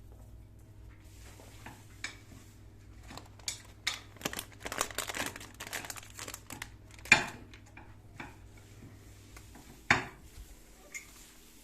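Scattered clinks and knocks of hard objects being handled, like dishes or utensils, with a busy, rustling stretch in the middle and two sharp knocks, about seven and ten seconds in.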